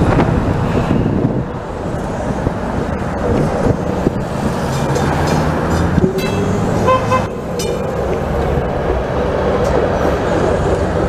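Toronto TTC CLRV streetcars running on street track amid road traffic: a steady rumble of wheels and traffic. A motor whine rises about six seconds in, with a short high tone near seven seconds.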